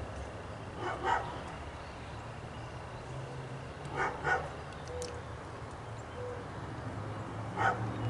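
A dog barking in three brief bouts of short barks, the first two doubled, over a steady low rumble of wind on the microphone.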